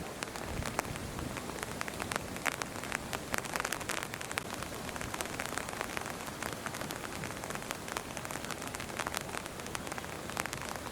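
Steady rain falling, a dense patter of many separate drops striking a hard surface.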